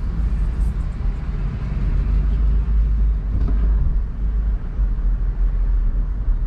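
Steady low rumble of a car driving in traffic, heard from inside the cabin, with road and engine noise.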